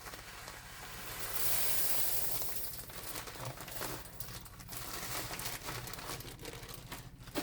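Millet seed pouring into a feed bin with a hiss, loudest for a second or two early in the pour, followed by irregular rustling as the seed and its bag are handled.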